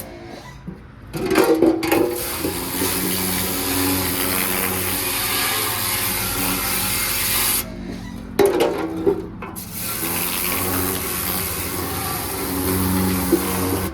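Pressure washer spraying the degreased underside and drivetrain of a truck, a loud steady hiss of water jet on greasy metal. It starts about a second in, stops briefly just past the middle as the trigger is let go, then starts again.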